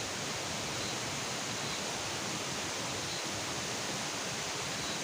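Steady, even hiss-like outdoor noise with no distinct events.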